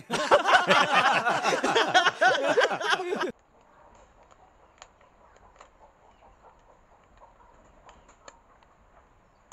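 Audio from an inserted film clip: a loud burst of dense, rapidly wavering voice-like sounds that cuts off sharply about three seconds in. After it come only faint small clicks of fingers handling a thin plastic tube.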